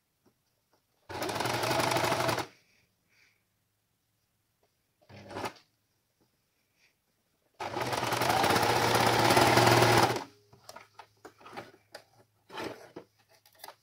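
Electric household sewing machine stitching a seam through fabric, run in two bursts, the first about a second and a half and the second about two and a half seconds, with a short spurt of stitching between. Light clicks of the fabric being handled in the pauses.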